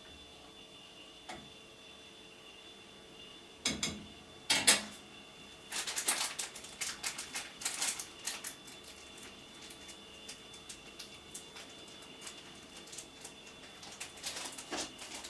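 Irregular light clicks and crackling rustles, with two louder ones about four seconds in. A quick run of them follows, then they come more sparsely, picking up again near the end.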